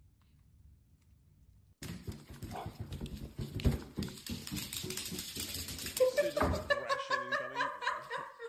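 A small animal calling repeatedly, with its pitch bending, over a busy run of knocks and scuffles. It begins suddenly about two seconds in, after faint room noise; the calls start about six seconds in.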